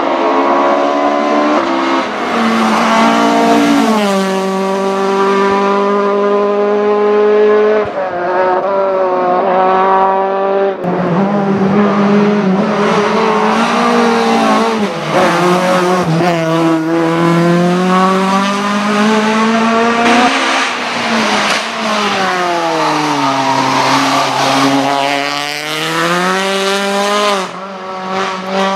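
Naturally aspirated 2.5-litre Cosworth YB four-cylinder racing engine of a Ford Escort Mk2 driven hard, rising in pitch as it revs out and dropping back at gear changes and lifts for corners, again and again. Tyres squeal at times.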